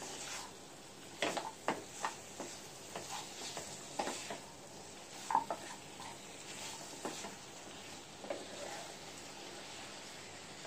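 Wooden spatula scraping and knocking against a non-stick pan as goat mutton pieces are stirred in spice paste, with irregular clacks over a steady faint sizzle of the meat dry-frying without water.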